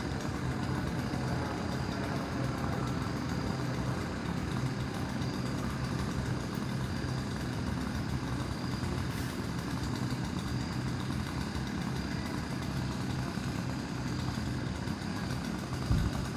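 Engine running steadily at a constant speed, with a brief thump near the end.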